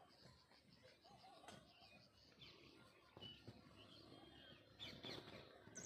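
Faint, scattered bird chirps over a quiet outdoor background.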